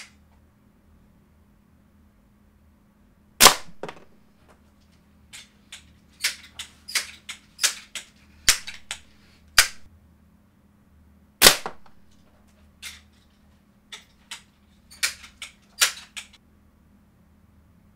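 Crosman 1377c multi-pump .177 air pistol being fired: two sharp shots about eight seconds apart, the first about three and a half seconds in. Between and after them comes a run of quieter clacks from pumping the gun and working its bolt to reload.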